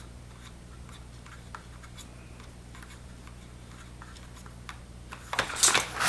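Light clicks and handling of a horizontal window blind's bottom rail as new cord is pushed through its hole, with a short louder scrape and rustle near the end.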